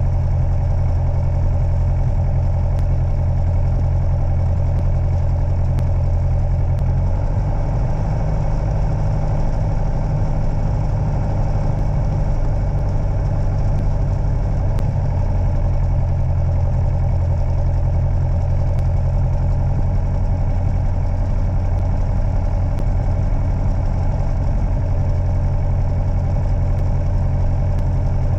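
Light aircraft's piston engine running steadily at low power, heard inside the cockpit, with a slight change in its note about seven seconds in. The recording has been heavily boosted and cleaned, and faint camera clicks recur every few seconds.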